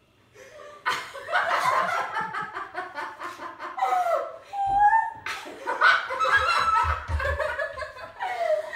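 A group of girls and women laughing and exclaiming excitedly, breaking out about a second in after a brief hush.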